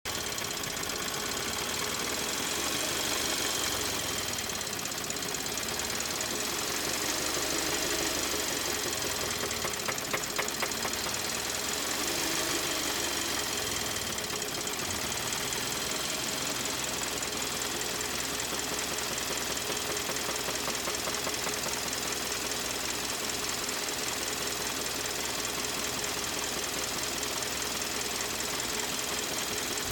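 2013 Kia Optima engine running with a rapid, steady knocking, and a few louder knocks about ten seconds in. The car is logging fault code P0014 (camshaft timing over-advanced), and the owner takes the knock as the sign of an engine about to blow.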